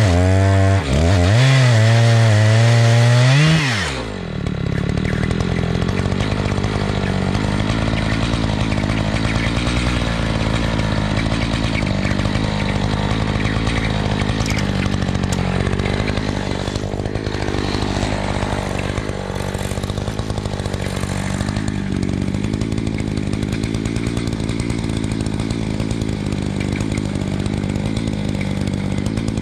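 Chainsaw in an Alaskan chainsaw mill ripping lengthwise through a log. Its pitch swings up and down for the first few seconds, then holds steady as the saw runs under load for the rest of the cut.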